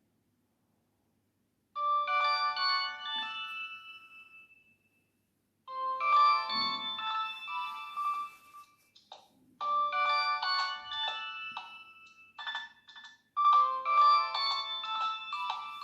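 Nokia 6600 polyphonic ringtone playing: a short melody of quick notes starts about two seconds in and repeats roughly every four seconds, with a few percussive clicks between the repeats.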